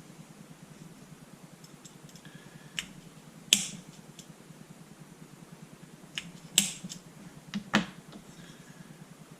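Automatic spring-loaded center punch snapping against a retaining pin in a paintball marker's body, several sharp irregular clicks, the loudest about a third of the way in and again past the middle, to drive the pin out.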